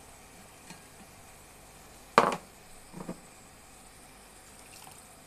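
A sharp clack about two seconds in, then two lighter knocks, from a bowl being knocked against the rim of an enamel pot as washed rice is tipped in, over the faint steady hiss of the broth simmering.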